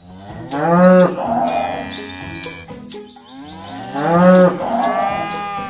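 A cow mooing twice, two long calls about three seconds apart, over music with a clicking percussion beat.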